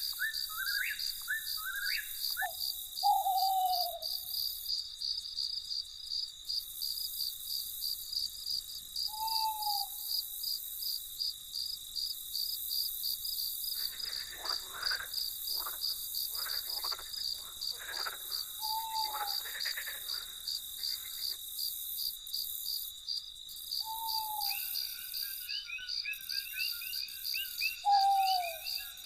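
Night ambience: a steady, high, pulsing chorus of crickets runs throughout. Over it, short falling owl-like hoots come every several seconds, and croaking frogs call in a burst around the middle. A fast chattering of calls sets in near the end.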